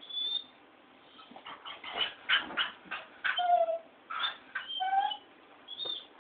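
Mixed-breed dog barking at a light in a quick, irregular run of short barks, with a couple of brief whining yelps a little after the middle.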